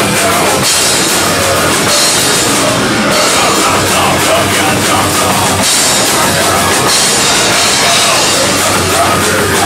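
Loud live slappin' hardcore band playing: drum kit, electric guitar and slapped upright double bass together.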